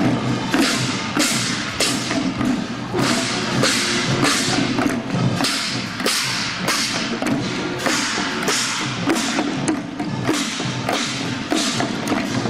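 Parade percussion: small hand-held drums struck by marching performers in a steady beat, about two to three strokes a second, each stroke with a bright, ringing crash.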